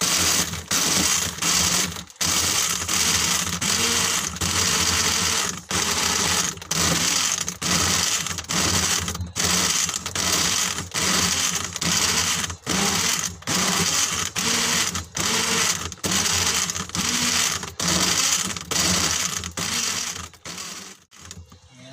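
Portable bottle mini blender running while blending a dragon fruit shake. The motor and blades run in short runs that cut out for an instant about every second, then stop about a second before the end.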